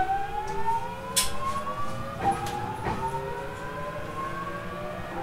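GTO-thyristor VVVF inverter and traction motors of a JR East 209 series 3000-subseries motor car accelerating from a stop. Several whine tones climb steadily together, and the set of tones jumps to a new pattern a little over two seconds in and again near the end as the inverter changes pulse mode. A few sharp clicks sound over the whine.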